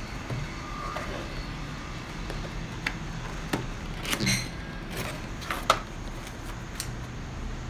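Scattered light clicks and knocks of hands handling a camera box and its contents, over a steady low hum; the sharpest clicks come about three and a half and five and a half seconds in.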